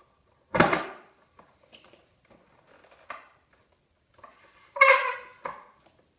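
Household objects being handled and moved: a knock about half a second in, a few small clicks, and a louder scrape with a brief squeak near the end.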